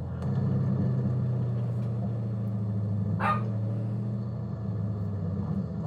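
Dodge Scat Pack's 6.4-litre Hemi V8 running steadily at low cruising revs, heard as a low drone from inside the car. A short, higher sound cuts in briefly about three seconds in.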